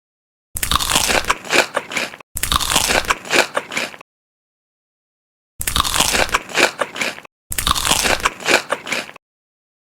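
Loud, close-up crunching of crisp food being bitten and chewed, in four separate spells of crackling, each cut off sharply into dead silence.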